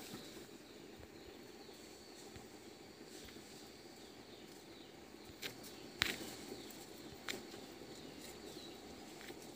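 Quiet outdoor background with faint high chirps, broken by three sharp clicks about halfway through, the middle one the loudest.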